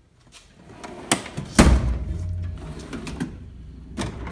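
Metal tool chest drawer sliding on its runners, with a click about a second in, a loud clunk just after and a low rumble as it travels, then another click near the end.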